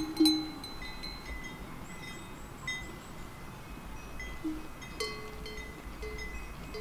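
Many sheep bells clinking and ringing irregularly as a flock moves, several bells of different pitch sounding together.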